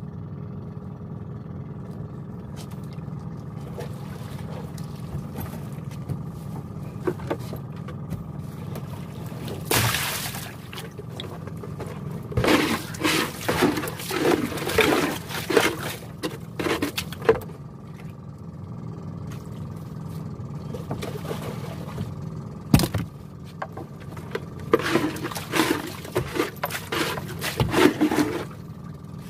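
Small boat engine idling steadily, with bursts of water splashing and scraping as a net trap is worked over the boat's side, and a single sharp knock about two-thirds of the way in.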